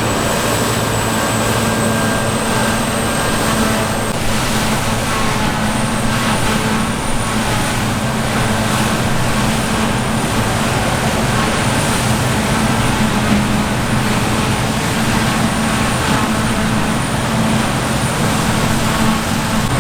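Heavy diesel harvest machinery running steadily at constant speed: a low, even engine drone with a faint high whine above it.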